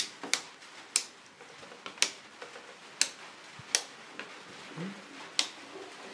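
Plastic wall light switches being flicked on and off by hand: seven sharp clicks, roughly one a second, as the switched lamp circuit is tested.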